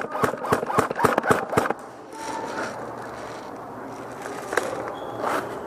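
A fast, even run of sharp clicks, about six a second, that stops about two seconds in. After that there is a quieter, steady background noise with a faint knock or two.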